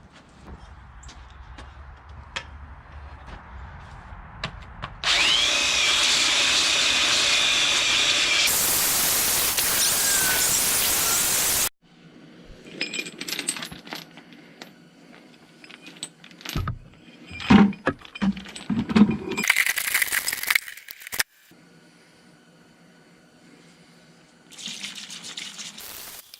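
A power tool runs loudly and steadily for about six seconds, then cuts off. It is followed by a run of separate knocks and clatter, another brief burst of machine noise, and more noise near the end.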